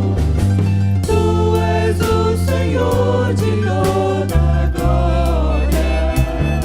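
Gospel worship song: several voices singing together over a deep bass line and a steady drum beat of about two hits a second.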